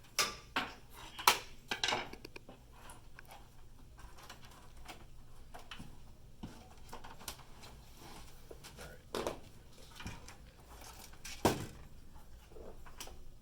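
Knocks and clicks of computer parts being handled while a motherboard is moved into a PC case: several sharp knocks in the first two seconds, then scattered lighter ticks and two more sharp knocks later, over a faint low hum.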